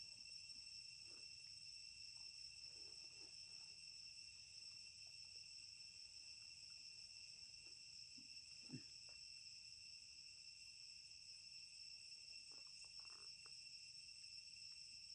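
Faint, steady high-pitched chorus of insects droning without a break, with one brief faint sound a little past halfway.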